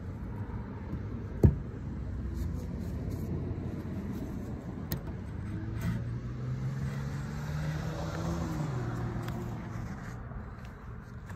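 A passing car's engine over a steady low traffic rumble, its pitch rising slowly through the second half and dropping away near the end. A single sharp knock comes about a second and a half in, the loudest moment.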